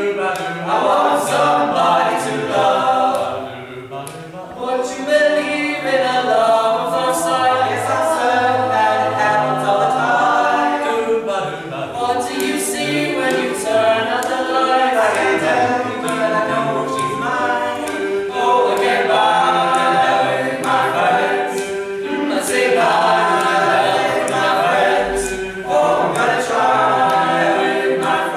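A teenage boys' a cappella group of about nine voices singing together in harmony, with no instruments.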